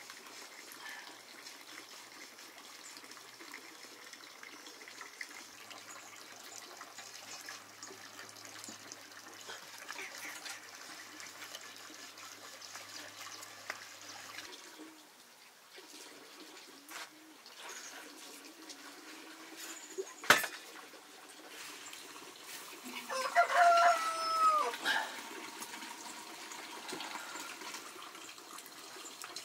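A rooster crows once, a single call held level and then dropping in pitch at the end. A few seconds before it comes one sharp click or knock.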